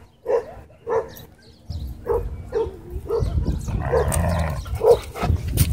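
A dog barking over and over in short barks, about two a second, with a low rumble underneath the barks from about two seconds in.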